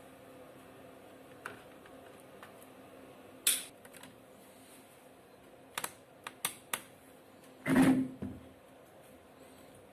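Light clicks and taps of a screwdriver and small screws against a laptop's plastic case: a couple of single clicks, a quick run of about five clicks a little past halfway, then a louder, longer knock near the end.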